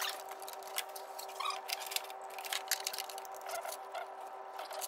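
Scattered light clicks and scrapes of hand tools and parts being handled during engine reassembly, over a steady faint hum.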